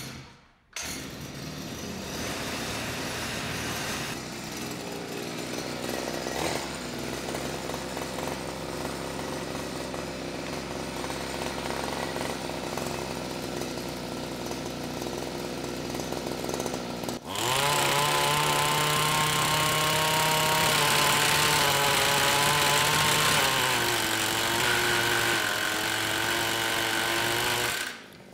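60cc two-stroke engine of a gas-powered Milwaukee impact wrench running steadily, then about 17 seconds in revving up to full throttle as the gun hammers in reverse for about ten seconds. The engine pitch sags in the last few seconds as it bogs down under the load, then it cuts off abruptly.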